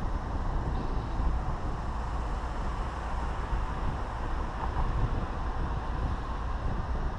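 Steady engine, tyre and wind noise inside the cabin of a small classic car driving along at speed.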